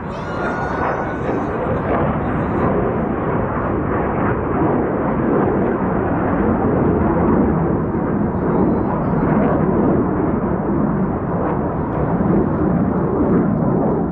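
Jet noise from Black Eagles T-50 jets and their single F404 turbofans during a display pass: a loud, steady rush that swells slightly after the first couple of seconds.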